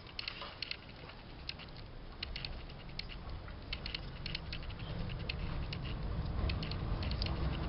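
Light, scattered clicks and scratches of hands handling scissors, string and pieces of charred dried corn cob while threading them, over a low rumble that grows louder through the second half.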